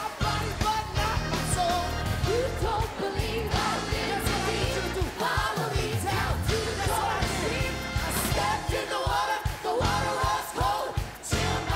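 Live keyboard worship music with steady sustained chords, with several voices singing and praying aloud over it during an altar prayer.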